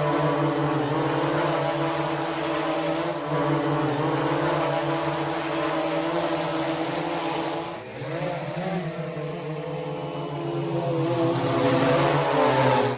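Small quadcopter drone's propellers whirring steadily, the pitch wavering and shifting briefly about eight seconds in as the drone changes speed.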